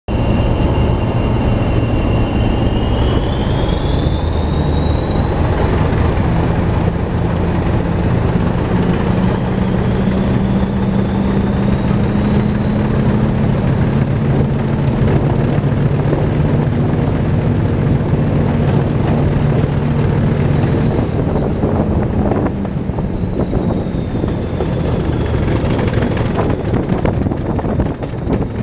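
British Rail Class 40 diesel locomotive's English Electric 16-cylinder turbocharged engine working under power as it pulls away, with a deep engine note beneath the turbocharger whistle. The whistle climbs steadily in pitch over several seconds, holds high, then drops back near the end as the short burst of power is eased off.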